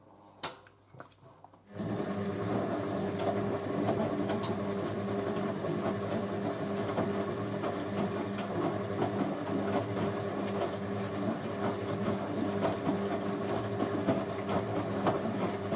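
Hoover A3060 Electronic 1100 washing machine turning its drum in the 60°C main wash: after a click, the drum motor starts about two seconds in and runs steadily with a hum under a busy, crackling wash noise, stopping just at the end.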